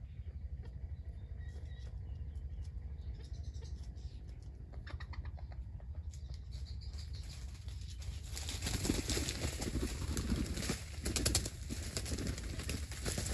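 Junglefowl wings flapping in repeated noisy flurries, starting about eight seconds in.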